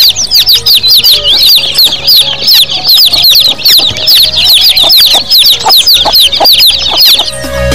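A crowd of baby chicks peeping nonstop: many short, high peeps that each fall in pitch, overlapping several times a second. Background music comes in just before the end.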